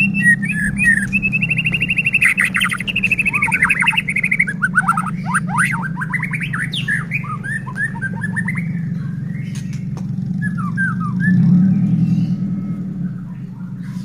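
White-rumped shama (murai batu) in full song: fast trills and whistled notes that sweep down in pitch, busiest for the first eight seconds and sparser after. A steady low hum runs underneath.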